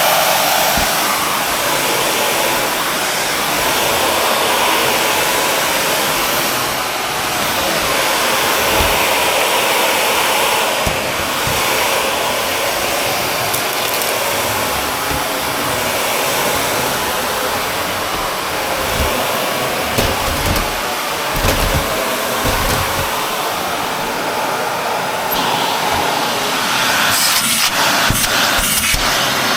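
Shark Navigator Lift-Away upright vacuum running steadily while spot vacuuming. A few low bumps come around twenty seconds in, and some clicks and knocks come near the end.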